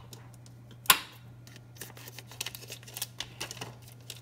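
Frozen salmon fillet in its plastic pack handled over a foil-lined baking pan: one sharp knock about a second in, then faint crinkling of the plastic and foil. A steady low hum runs underneath.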